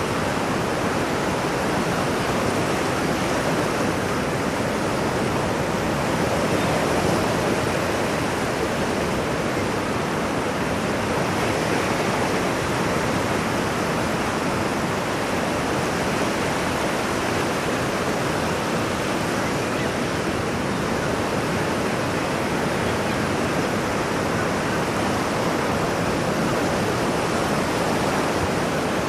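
Ocean surf washing in a steady, unbroken rush, with no separate wave breaks standing out.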